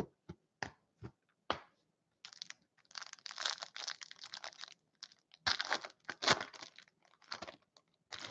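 A few sharp taps, then a foil trading-card pack being torn open and crinkled in the hands, in two long stretches of crackling and a short burst near the end.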